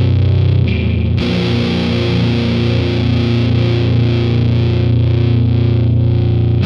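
Electric guitar played through the Pink Noise distortion pedal, giving a heavy, fuzzy tone. Low notes are held and ring on, with a new chord struck about a second in.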